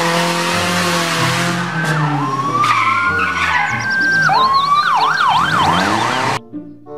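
Police car engine revving with a rush of tyre skid noise, then a siren winding up into a wail and a fast yelp. The sound cuts off suddenly about six seconds in.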